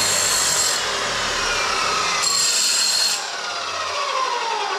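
Abrasive chop saw running while squaring the cut end of a transmission's metal throwout-bearing snout, with two short bouts of the wheel biting into the metal. The motor then winds down with a falling whine.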